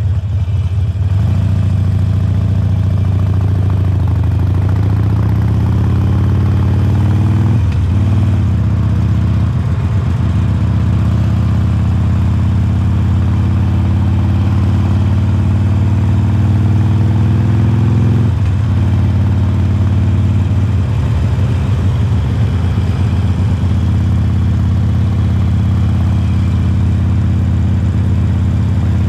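Harley-Davidson Forty-Eight's air-cooled 1200 cc V-twin running through Khrome Werks slip-on mufflers, heard from the rider's seat. It pulls away and rises in pitch, drops back twice as it shifts up a gear, about eight seconds and about eighteen seconds in, then settles to a steady cruise.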